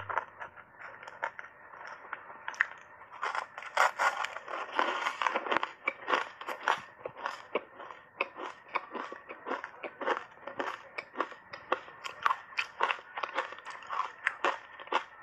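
Matcha-powdered ice being bitten and chewed: a dense, irregular run of sharp crunches, loudest and most tightly packed around four to five seconds in.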